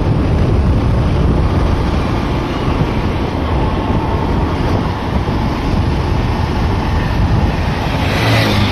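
Wind buffeting the microphone of a moving two-wheeler, a steady heavy rushing with the ride's engine and road noise under it. About eight seconds in, another motorcycle passes close by and briefly rises above the wind.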